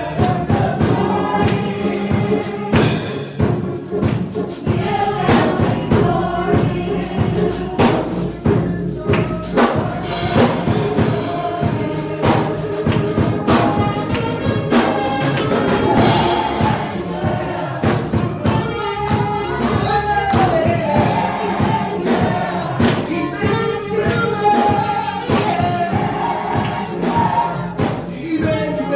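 Gospel choir singing with band accompaniment and a steady beat of drums and percussion.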